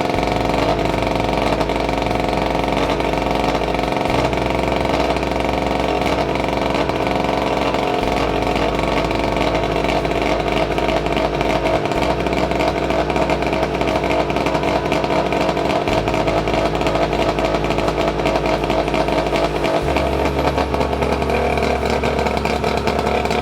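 Boat motor running steadily out of the water, cooled by a hose-fed flushing attachment on its lower unit, with a slight change in its note near the end.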